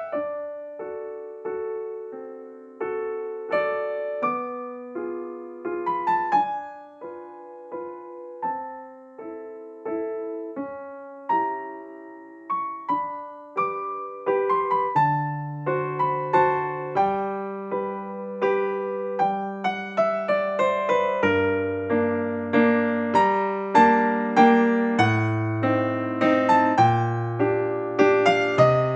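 Background piano music: a gentle melody of single struck notes, with lower bass notes joining about halfway through.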